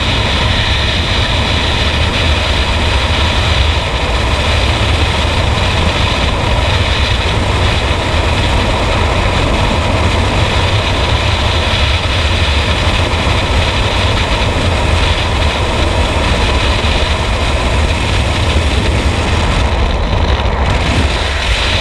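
Freefall wind rushing past a helmet-mounted camera during a skydive: a loud, steady rush with a deep rumble underneath, the highest hiss briefly dropping away near the end.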